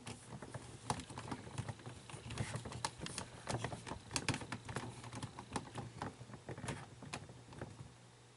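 Small plastic parts of an animatronic toy being handled and fitted: irregular light clicks and taps, with a few sharper clicks among them.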